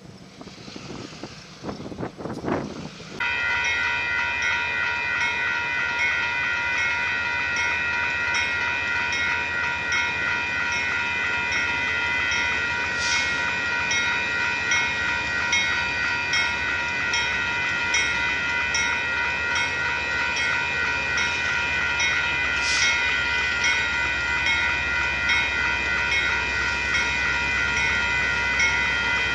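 Railroad grade-crossing warning bell ringing steadily with a rapid repeating ding, starting abruptly about three seconds in, over the low rumble of a passing Union Pacific freight train. Two brief high-pitched sounds cut through, about halfway and again about three-quarters of the way through.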